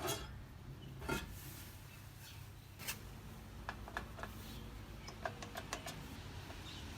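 Faint, scattered metallic clicks and light taps from hands working on an exposed rear drum brake assembly, with a small knock about a second in and a run of quick ticks in the second half.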